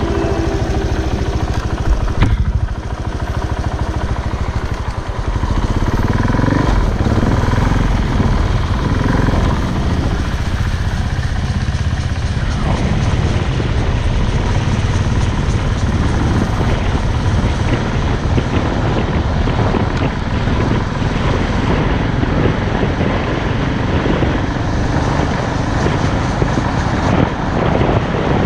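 Off-road motorcycle riding along a dirt trail: the engine rises and falls in pitch with the throttle over a steady rumble of riding noise.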